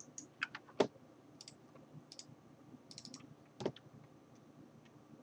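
Scattered clicks of a computer mouse and keyboard. Two louder clicks stand out, one just under a second in and one about three and a half seconds in.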